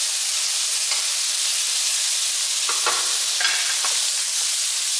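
Sliced cucumber, carrot and tomato sizzling in hot oil in a frying pan, with a black spatula scraping and tossing them a few times. The loudest stroke comes about three seconds in.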